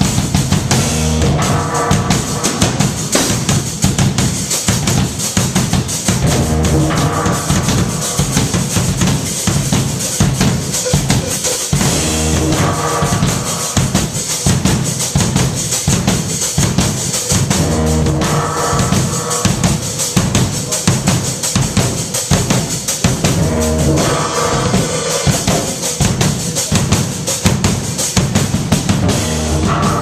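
Loud live band music driven by a drum kit with bass drum and snare hitting a fast, steady beat, and a pitched chord swell that comes back about every six seconds.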